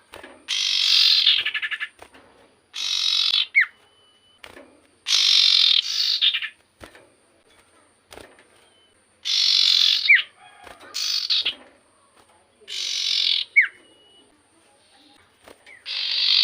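Common iora (cipoh) calling energetically with harsh, chattering bursts about a second long, repeated every two to three seconds. Several bursts end in a short rising whistle.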